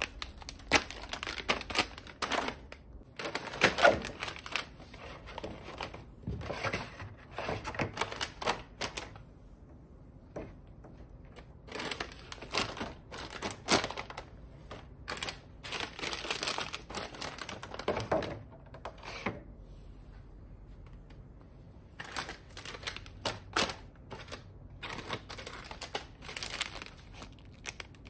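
Plastic snack wrappers crinkling and thin clear plastic trays clicking and tapping as small snack packets are handled and set down, in irregular spells with two quieter gaps.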